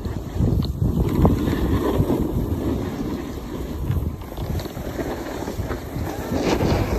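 Wind rushing over a phone microphone as it moves fast down a ski slope, with a low rumbling scrape of a board or skis sliding over packed snow and a few small knocks.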